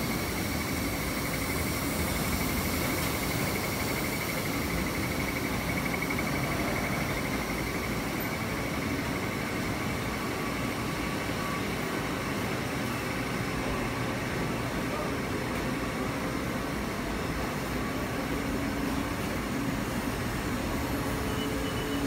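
Steady machinery hum and hiss of an electronics assembly floor where rows of pick-and-place machines are running. A thin high tone fades out about seven seconds in.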